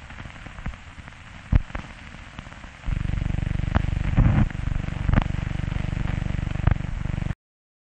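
Run-out of a worn optical film soundtrack: faint hiss with scattered crackles and pops, then about three seconds in a loud low buzz with a fast, even pulse, which cuts off abruptly near the end.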